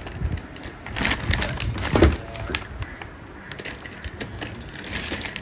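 Packaging and parts being handled: irregular rustling and clicking, with a heavier knock about two seconds in.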